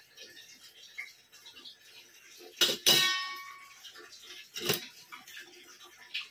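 Stainless steel utensils clanking: two quick metal clinks about two and a half seconds in, the second ringing for nearly a second, then another knock about two seconds later.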